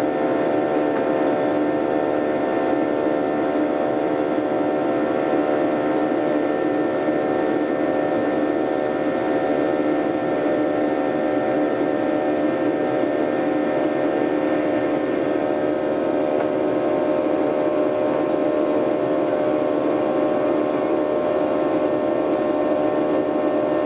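Jet airliner cabin noise during the climb after takeoff: a steady hum with several engine tones in it.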